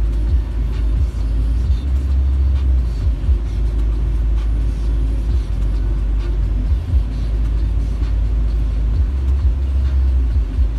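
Automatic car wash running over the car, heard from inside the cabin: a steady low rumble of the wash machinery and water on the bodywork.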